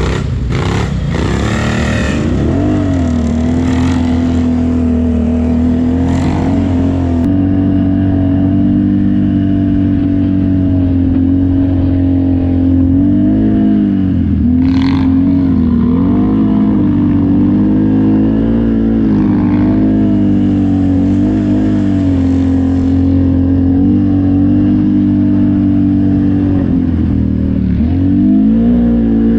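ATV (quad) engine running under steady throttle on a trail ride, its pitch mostly held and dipping and picking back up a few times as the throttle is eased and reopened.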